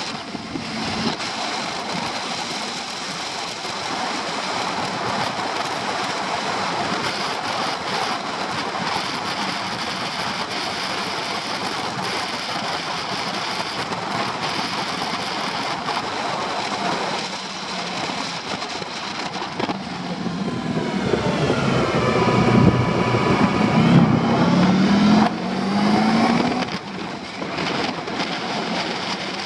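Honda Pan-European ST1100's V4 engine running on the move, under a steady rush of wind and road noise. About twenty seconds in the engine note falls, then climbs louder for a few seconds as the bike slows and accelerates again.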